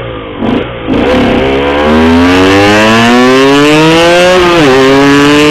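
Cagiva Mito 125 two-stroke single-cylinder engine with an Arrow exhaust, accelerating hard under load: the note climbs steadily in pitch, drops sharply at an upshift about four and a half seconds in, then climbs again.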